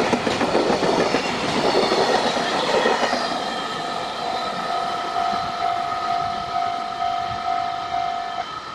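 Freight train rolling past with its wagons clattering over the rail joints, fading as it moves away. From about halfway in, a level-crossing alarm rings at about two strokes a second, then stops near the end.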